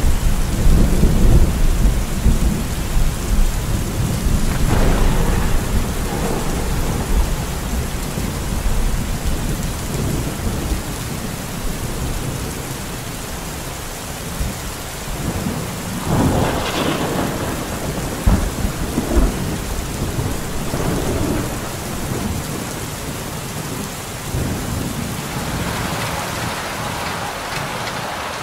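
Steady heavy rain with water pouring off a roof edge, and thunder rumbling at the start and again a little past halfway.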